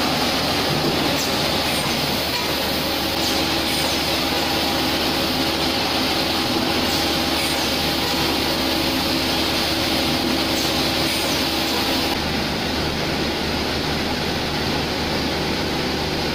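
Steady machinery din of a bottling line's conveyors and shrink-wrap packing machine running, a continuous hum with a few faint steady tones and faint light clicks now and then. The high hiss eases about twelve seconds in.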